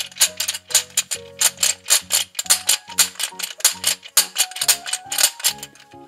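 Plastic toy hand mixer's spinning beater clicking about four to five times a second, over background music.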